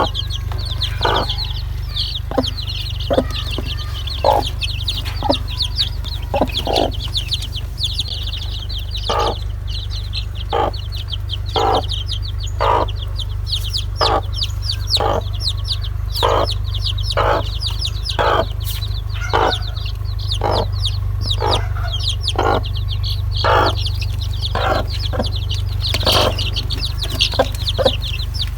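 Domestic chicks peeping continuously in rapid, high cheeps, with a hen clucking in short low notes about once or twice a second. A steady low hum runs underneath.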